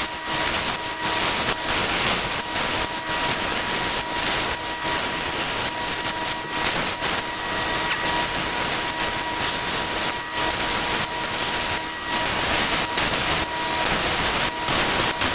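Power grinder running and grinding the flats of a coil-spring steel chisel blank: a loud, dense grinding hiss over a steady motor whine, rising and dipping slightly as the steel is pressed on and eased off.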